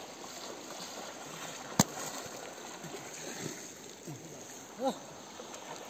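Steady rush of flowing river water, with one sharp click about two seconds in and a short call near the end.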